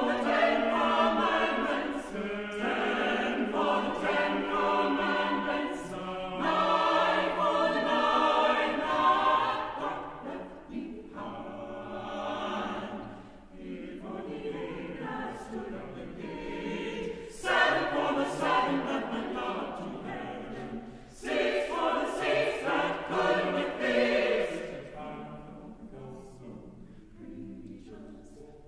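Mixed choir of sopranos, altos, tenors and basses singing a spiritual arrangement in full harmony. Loud phrases alternate with softer passages, and the singing grows quieter near the end.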